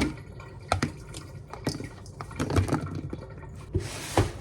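Kitchen handling sounds from packing lunch: food containers and utensils clicking and knocking, with a short rush of hiss near the end.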